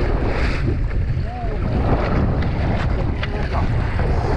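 Wind buffeting the microphone on the deck of a fishing boat: a steady, gusting low rumble, with faint voices in the background.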